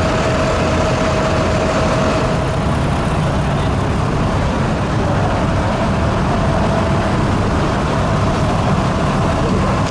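Diesel engines of parked tractors idling together, a steady low rumble.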